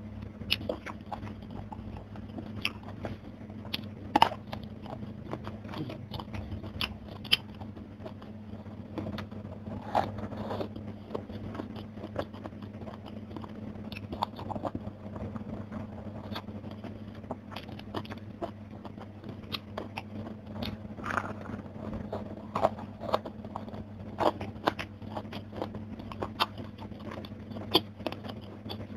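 Close-miked eating sounds: wet chewing and irregular sharp crunches of crisp food, such as fried fish and raw young eggplant, over a steady low hum.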